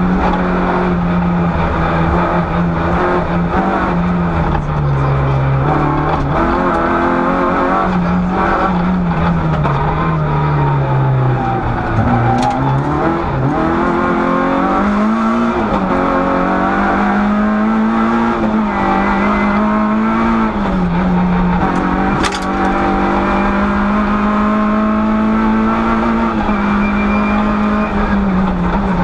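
Rally car engine heard from inside the cockpit, pulling hard with the revs rising and falling through throttle lifts and gear changes. The engine note sinks low under braking about ten seconds in, then picks up again with quick rises and holds high for the rest of the run. Two short sharp knocks, about twelve and twenty-two seconds in.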